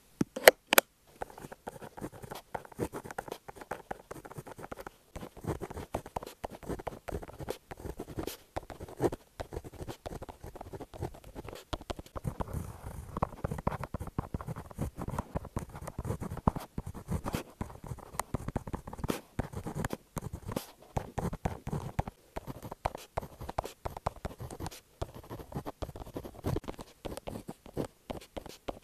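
Continuous irregular scratching and light tapping, with a few sharp clicks about a second in.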